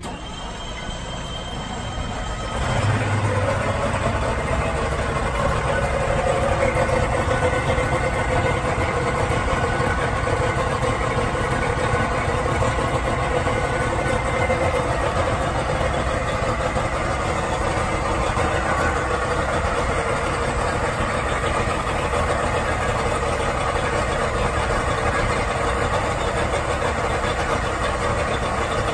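Mercury Pro Max 300X outboard, a 2003 two-stroke V6, cold-started without choke: it turns over under a steady high beep, catches about three seconds in, and then runs steadily and loudly.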